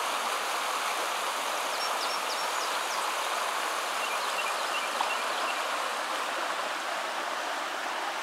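Shallow creek rippling over rocks: a steady rush of running water. A few faint high chirps come in about two seconds in and again around four to five seconds.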